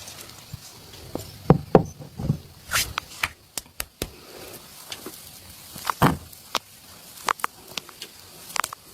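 Hands slapping and patting oiled skin during a massage: about ten irregular sharp slaps, the loudest a second and a half in and again about six seconds in.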